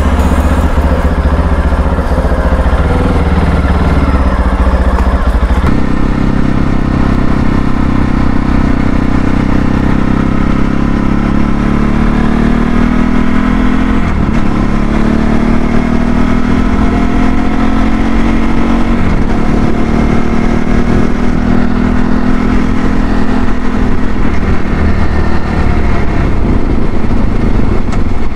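CSC RX4 motorcycle engine, a new bike on its break-in ride: running low at first, then pulling away about six seconds in, the revs climbing, dipping briefly around the middle and climbing again, then holding steady at cruising speed.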